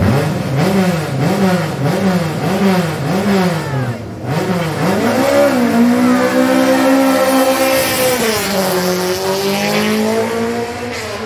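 Rally car's engine at the start line, blipped up and down a little under twice a second, then brought up to high revs about five seconds in and held there steadily for a few seconds before the revs drop.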